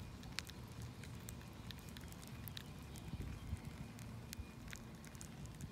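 Faint, irregular tiny clicks and crackles of leafcutter bees inside their cocoons, chewing through the caps so they can emerge, over a low steady rumble.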